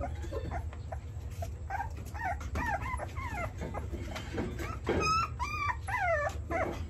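Young puppies whimpering in short, high cries that fall in pitch, coming thicker and louder about five seconds in.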